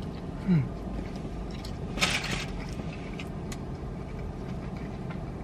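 Steady low hum inside a car, with a brief falling voice sound about half a second in and a short rustle of fast-food packaging about two seconds in, followed by a few small clicks.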